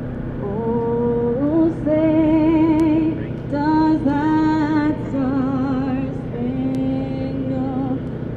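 A woman's solo voice singing slowly, holding long notes with wavering vibrato and stepping up and down between them.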